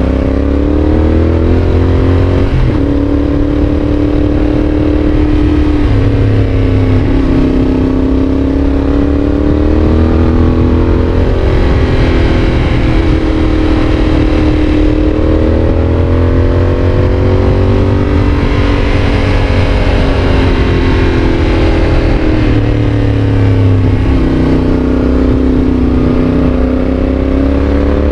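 Yamaha Tracer 7's 689 cc parallel-twin engine through an aftermarket GPR exhaust, pitch rising and falling repeatedly as the bike accelerates and slows. A few sudden breaks in pitch come from gear changes.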